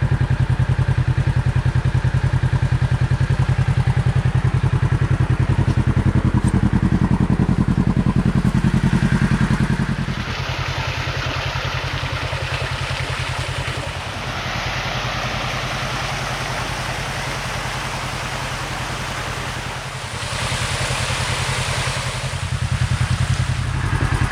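Kawasaki Teryx KRX side-by-side engine idling with a steady, even pulse. About ten seconds in a broad rushing hiss joins it and comes and goes for the rest of the stretch.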